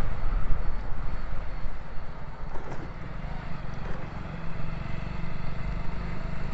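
Motorcycle running while being ridden, a steady low rumble.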